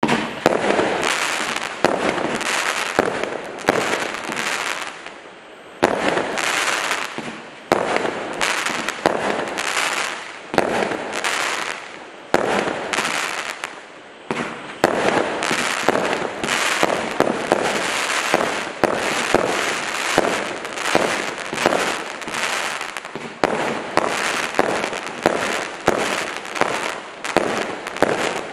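A 100-shot, 25 mm consumer firework cake (Encore) firing: a rapid run of launch reports and bursts, about two a second, with a few short pauses.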